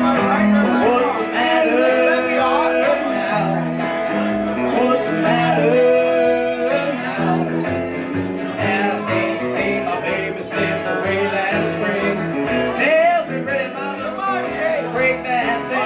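Live country band playing: electric guitar and upright bass, with a singer.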